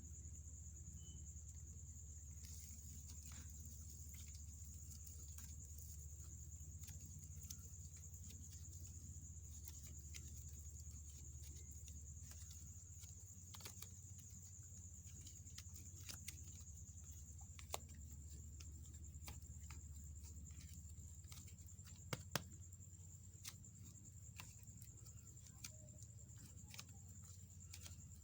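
Clay slime being handled: faint, scattered sticky clicks and taps, with a few sharper clicks in the second half, over a steady low hum and a faint high whine.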